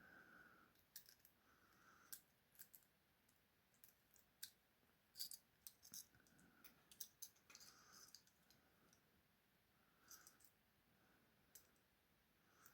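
Faint, scattered small metallic clicks and light scrapes of two wire picks working inside a British two-lever padlock.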